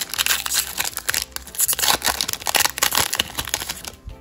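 Foil Pokémon booster pack crinkling and tearing as it is ripped open by hand: a dense run of crackles that dies down near the end.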